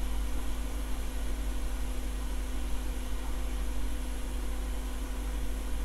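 Steady hum and hiss of running bench equipment, even throughout, with a faint constant tone in it.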